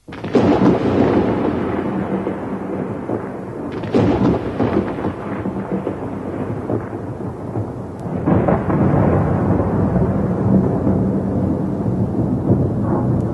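Thunderstorm: a sudden crack of thunder followed by long rolling rumbles, with fresh thunderclaps about four and eight seconds in, over steady rain.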